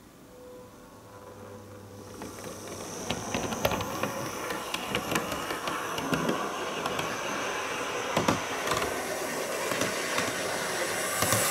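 Model train running on the layout track, growing louder as it comes towards the microphone: a steady running hiss with many sharp clicks from the wheels over the track.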